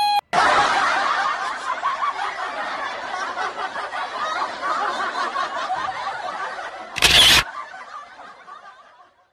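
Many people laughing together, a dense overlapping laughter that slowly fades out near the end. A short, loud noise burst cuts in about seven seconds in.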